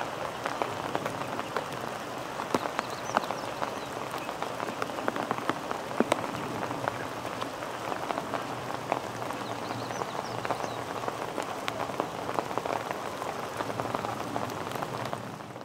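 Steady rain falling, with many sharp raindrop ticks and drips landing on nearby surfaces; it fades out at the very end.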